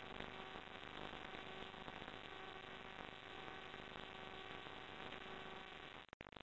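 Faint steady electrical hum and hiss from the recording's background, with several steady tones and no other sound. It drops out to silence for an instant near the end.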